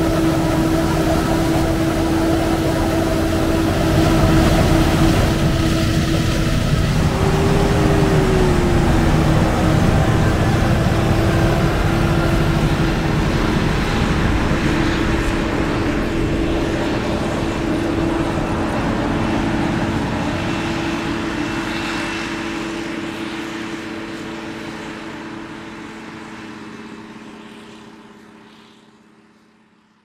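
Claas Jaguar forage harvester chopping maize with a tractor alongside: heavy diesel engines running steadily under load. There is a brief rise and fall in pitch about eight seconds in, and the sound fades out over the last several seconds.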